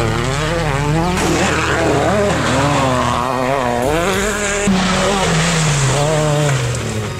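Rally car engines revving hard and dropping in pitch on lifts and gear changes as the cars pass one after another.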